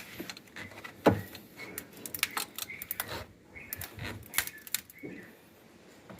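Socket wrench and pipe extension working on a starter-motor mounting bolt: irregular metallic clicks and clinks, with a sharp knock about a second in.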